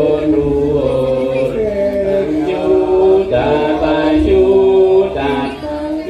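Javanese gamelan music for a wayang orang dance, led by chant-like singing of several voices in long held notes that step from pitch to pitch.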